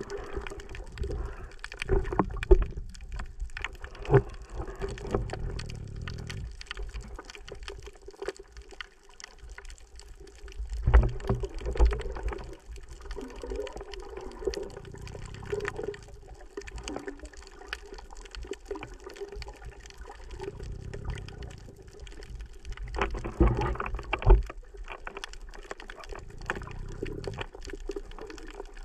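Muffled water sounds picked up by a camera held underwater: a steady churning and bubbling, with several louder surges of rushing water and softer low swells every few seconds.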